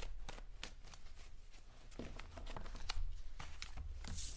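A deck of tarot cards shuffled by hand: a run of quick, soft clicks and flutters as the cards slide over one another, with a brief brighter swish near the end, over a low steady hum.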